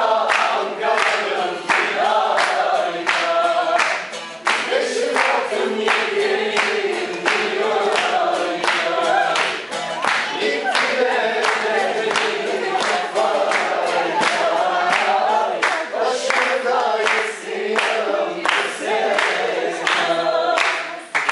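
A group of voices singing a dance song together, accompanied by steady rhythmic hand clapping.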